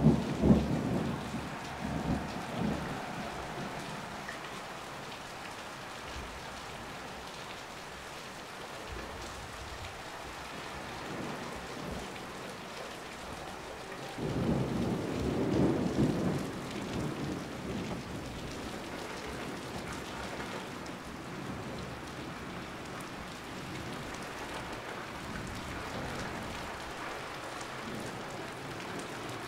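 Heavy rain falling steadily, with two rolls of thunder: one dying away over the first few seconds, another rumbling up about fourteen seconds in and fading over several seconds.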